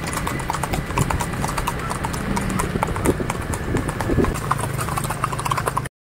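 Hooves of several horses walking on a paved road, a continuous irregular clip-clop that cuts off suddenly near the end.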